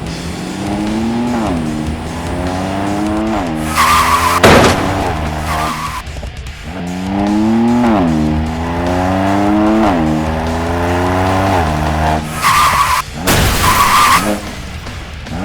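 Car engine accelerating through the gears, its pitch climbing and then dropping at each shift every couple of seconds. Loud tyre screeches come twice, around four to six seconds in and again near the end.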